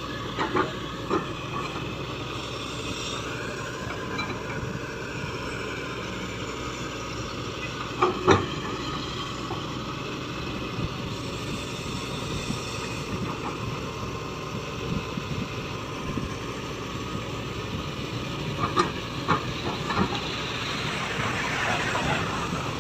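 Shantui excavator working, its diesel engine and hydraulics running steadily with a hiss, with a few sharp knocks: the loudest about eight seconds in and a cluster near the end.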